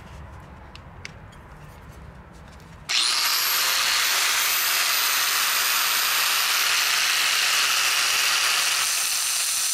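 Electric angle grinder switched on about three seconds in, spinning up quickly with a high whine, then running steadily with a dense hiss as the bolt's threads are held against the disc to grind a small groove that cleans out the threads.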